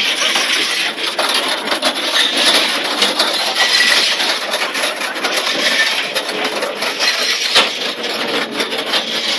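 Steel hoops of a rolling car cage grinding over rough concrete as the cage is pushed along: a steady rasping scrape, with many small clicks and rattles.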